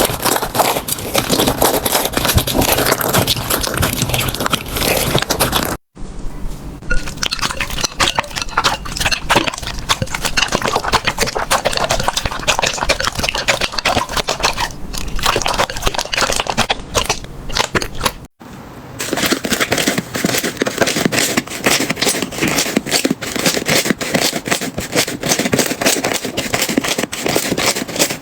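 Slime being handled, giving a dense run of crackling pops. It plays in three clips, with abrupt cuts about six and eighteen seconds in.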